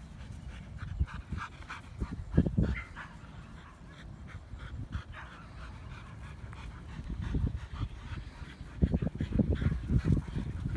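Siberian huskies panting and moving about as they run and play. Bursts of low rumbling are loudest about two and a half seconds in and again over the last two seconds.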